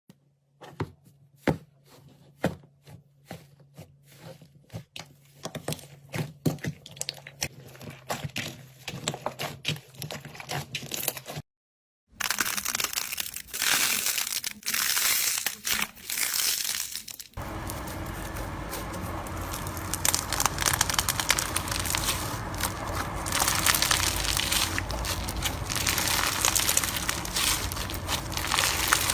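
Slime being squeezed and poked. For the first eleven seconds or so there are scattered sharp sticky clicks and pops. After a brief silent cut comes dense crinkly crackling, which grows fuller about five seconds later.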